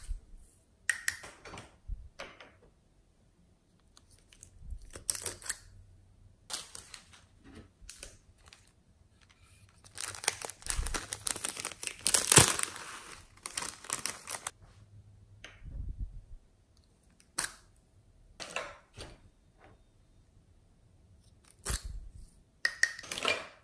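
Hands squishing, stretching and pulling apart glossy slime, making irregular sticky crackles and tearing sounds with short pauses between them. Midway there is a longer run of dense crackling lasting about four seconds.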